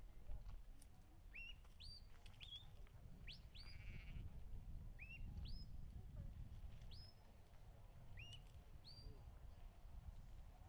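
Shepherd's whistle commands to a working sheepdog driving sheep: a run of short, high whistles, each rising sharply and holding briefly at the top, repeated every second or so. Low wind rumble on the microphone underneath.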